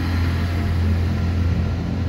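Class 166 Turbo diesel multiple unit running past and pulling away, its underfloor diesel engines giving a steady low drone.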